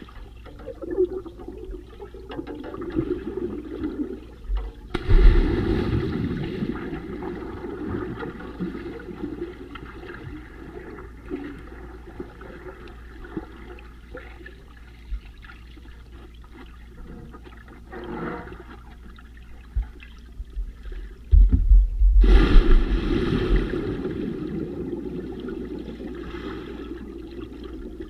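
Water heard underwater through a submerged camera's microphone: a muffled rush and bubbling. Two louder surges of bubbles come, one about five seconds in and one about twenty-two seconds in, and each fades away over several seconds.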